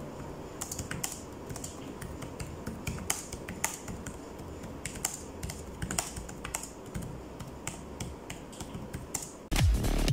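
Typing on the ASUS VivoBook 15 X512FA's backlit laptop keyboard, whose keys have 1.4 mm of travel: a run of light, irregular key clicks that stops about nine and a half seconds in.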